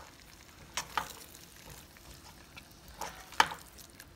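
A slotted spoon stirring chicken pieces through thick tomato gravy in a large nonstick pot, with a few sharp knocks of the spoon against the pot, the loudest about three and a half seconds in.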